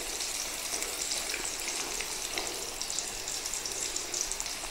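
Cheetos-crumb-coated chicken pieces deep-frying in hot oil: a steady sizzle with fine crackling.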